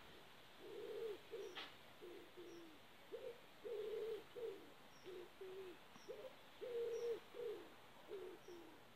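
A pigeon cooing: about three phrases of several low coos each, some notes drawn out longer than others. Faint high chirps repeat about once a second behind it.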